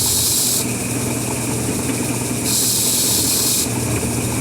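Mini lathe motor running with a steady hum. Two bursts of high hiss, each about a second long, come in the first second and again around the middle.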